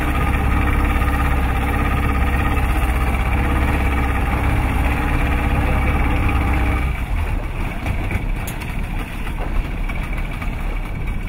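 Boat's engine idling with a steady low drone. About seven seconds in the drone drops away, leaving a rougher, noisier rumble.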